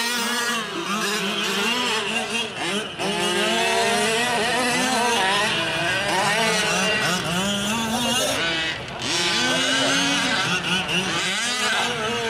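Several 1/5-scale gas RC trucks' small two-stroke engines revving and buzzing together, pitch rising and falling over and over as the trucks accelerate and slow around the track.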